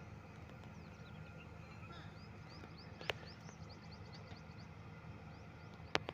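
Faint outdoor ambience: a steady low hum under a run of quick high bird chirps, with two sharp clicks, one about three seconds in and one near the end.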